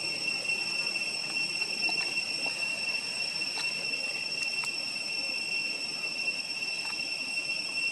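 Insects droning steadily at one high pitch, with a few faint clicks about halfway through.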